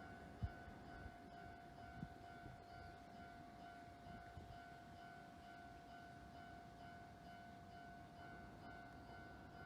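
Japanese electronic level-crossing warning bell ringing faintly and steadily in a repeating pattern, signalling that a train is approaching. Two short low knocks, one about half a second in and one about two seconds in.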